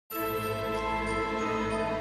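Background music of sustained, held notes that comes in suddenly just after a brief silence.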